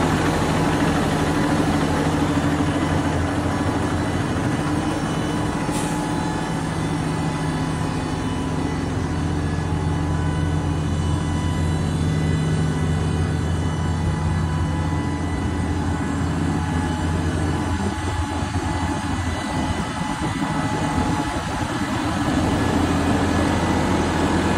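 JCB Fastrac tractor's diesel engine running at a steady idle, a low even drone that turns less steady about two-thirds through.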